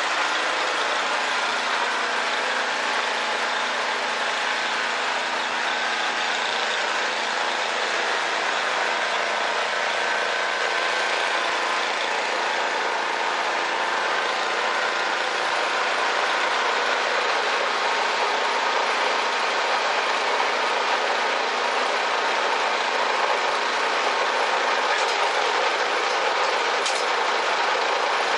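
Snowblower running with a tow strap caught in it: a loud, steady mechanical noise that holds unchanged throughout.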